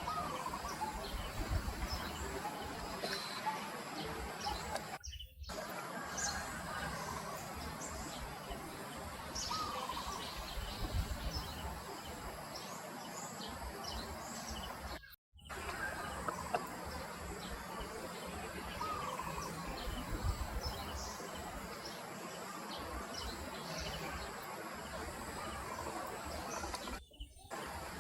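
Outdoor ambience: a steady background hiss with scattered short bird chirps, broken by brief dropouts about five seconds in and again near the middle.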